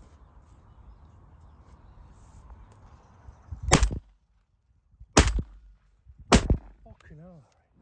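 Three shotgun shots from semi-automatic shotguns, the first a little before halfway, then two more about a second and a half and a little over a second apart.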